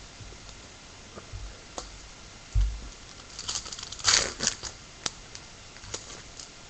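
Baseball trading cards and their pack being handled: a low thump, then a brief spell of crinkling and sliding about halfway through, and a few scattered clicks.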